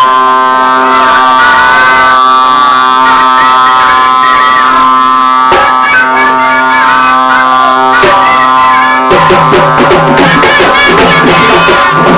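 Loud festival band music: a wavering melody over a steady held drone note. About nine seconds in the drone drops out and drums come in with quick strokes under a busier melody.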